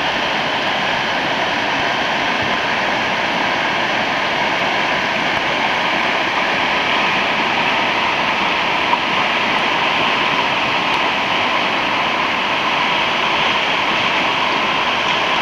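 River whitewater rapids rushing steadily and loudly.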